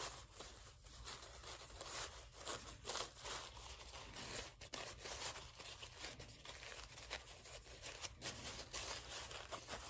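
Thin plastic tablecloth sheeting rustling and crinkling in irregular bursts as its folded layers are pulled apart and fluffed by hand into a pom-pom.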